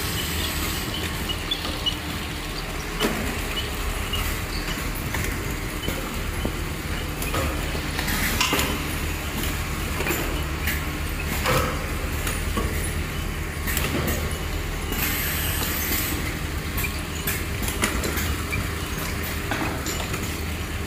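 Speed-chain pallet conveyor line running: a steady low hum from its drive motors and chains, with scattered clicks and clunks as the steel tooling pallets move along the line.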